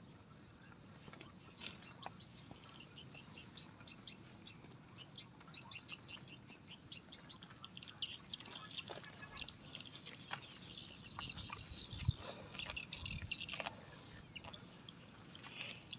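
A bird chirping in a quick, steady series of short high notes, about three or four a second, then breaking into a warbling run near the end. A couple of brief low sounds come in under the birdsong about three-quarters of the way through.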